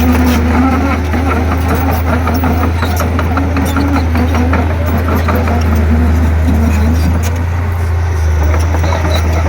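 Diesel engine of a Komatsu D31P crawler bulldozer running with a steady low drone, with frequent short clicks and knocks over it.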